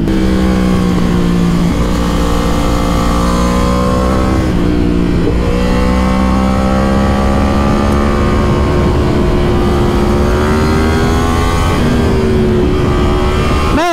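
Yamaha R1 inline-four sportbike engine running at steady riding revs, heard from the rider's seat over wind rush. Its pitch climbs slowly, with a brief dip in revs about four seconds in and another near the end.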